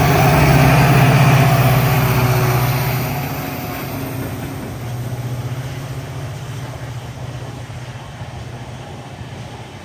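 Diesel locomotive's engine humming as it passes, loud for about three seconds and then fading away.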